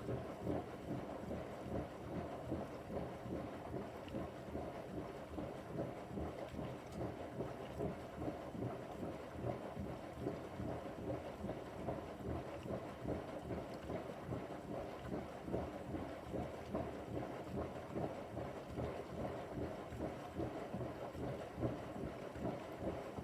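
Bosch washing machine running its Quick 15 wash with a pillow in the drum: steady churning and water sloshing as the drum turns.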